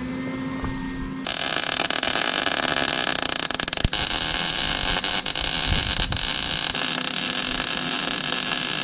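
Wire-feed welder arc running steadily: the crackling, frying hiss of a weld being laid on a steel frame. It starts about a second in, after a brief steady whine.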